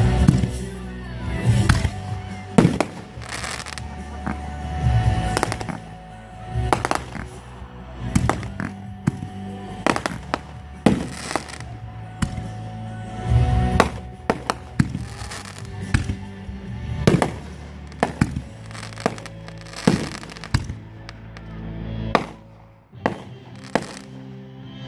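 Fireworks bursting in quick succession, sharp bangs often coming two or three a second, with music playing underneath. The bangs pause briefly near the end.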